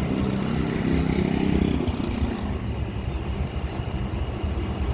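Large bus's diesel engine running at idle with a steady low rumble, a little louder in the first two seconds before settling.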